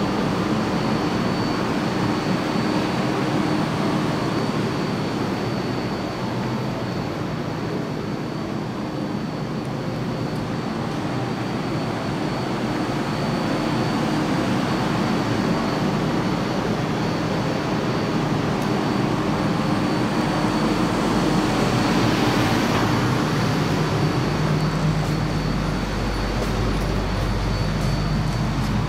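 Background noise of the Changi Airport Skytrain platform and the waiting driverless people-mover train: a steady hiss and hum with a faint high whine. About three quarters of the way through comes a brief swell of rushing noise, then a deeper low hum from inside the standing car.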